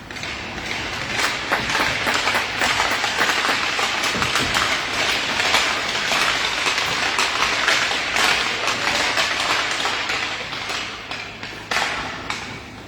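Crowd applauding: a dense patter of clapping that swells about a second in and fades near the end, with a short final burst.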